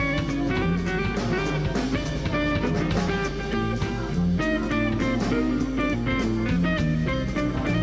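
A band playing: the guitar is to the fore over a moving bass-guitar line and drum kit with steady cymbal strokes.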